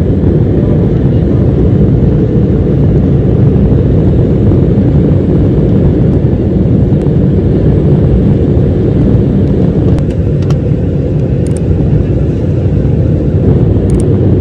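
Loud, steady jet-airliner noise heard inside the cabin during the takeoff roll: engines at takeoff thrust with the rumble of the wheels on the runway, the aircraft lifting off near the end.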